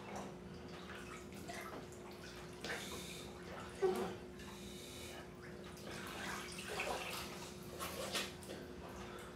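Bathwater sloshing and splashing in short, irregular bursts as a body in soaked clothes moves about in a full tub, the loudest about four seconds in, over a steady low hum.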